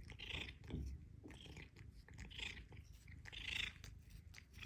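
Domestic cat purring, a faint steady low rumble, with soft scratchy rustles about once a second.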